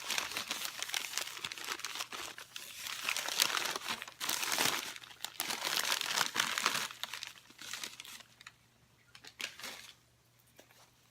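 Packing material crinkling and tearing as a wrapped item is unwrapped by hand, in repeated bursts that die down to a few light clicks near the end.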